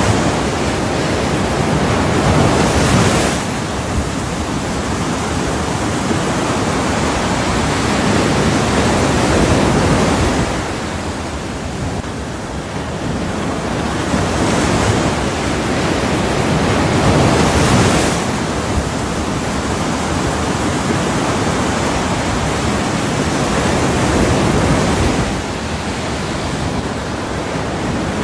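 Ocean surf: a continuous wash of waves that swells and ebbs slowly, rising to a peak every several seconds as each wave breaks and then falling back.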